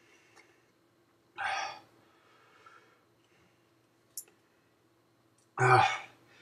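A man breathing in pain from the burn of a Trinidad Moruga Scorpion superhot pepper: one sharp, hissing breath out about one and a half seconds in, and a short voiced breath out near the end.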